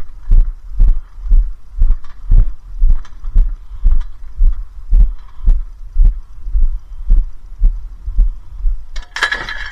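Heavy walking footsteps thudding about twice a second, picked up through a body-worn camera. Near the end, a sudden clatter with a ringing tone.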